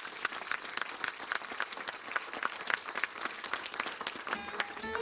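Audience applauding, a dense patter of many hands clapping. About four seconds in, plucked-string music begins under the clapping.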